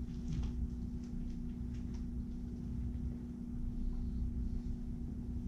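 Steady low room hum with a constant tone, and a few faint taps of laptop keys, mostly in the first two seconds and once more near the end.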